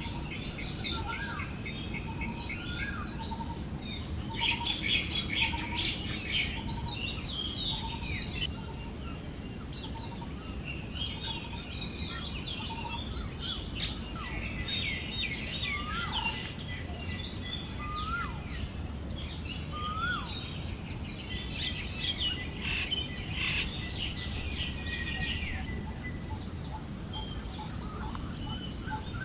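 Forest birds chirping over a low wind haze. One bird repeats a short note about once a second, and busier bursts of chirping come a few seconds in and again later. A steady high drone runs underneath.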